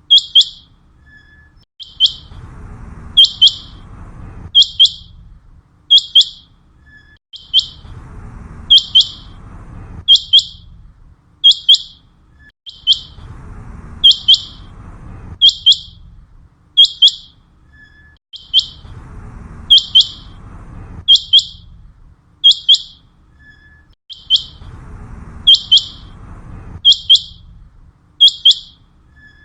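Common quail calling: loud, short, sharp high notes repeated in a steady pattern, about one a second, over a faint low background rumble.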